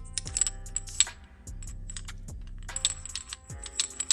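Small metal parts of a car headlight switch clicking and clinking as they are fitted together by hand, many light taps scattered through, over background music.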